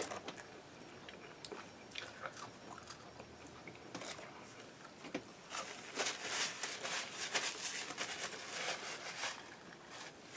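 Fairly quiet chewing of a mouthful of fast food, soft wet clicks and small crunches, getting busier about halfway through.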